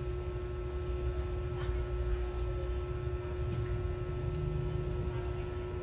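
Steady background hum with one constant tone over a low rumble, with a couple of faint clicks partway through.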